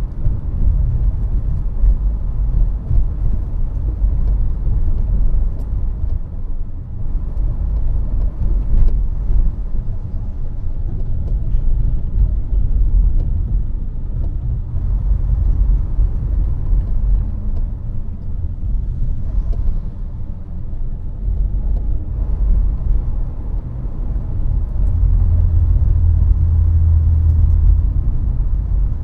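Steady low rumble of a moving vehicle in city road traffic: engine and road noise, with a deeper drone swelling near the end.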